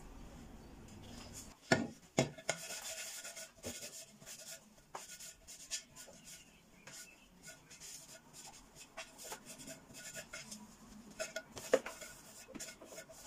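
A cloth rubbing and scrubbing over the ridged removable plate of a contact grill, with a few sharp knocks as the metal plate is handled: two a little under and just after two seconds in, and another near the end.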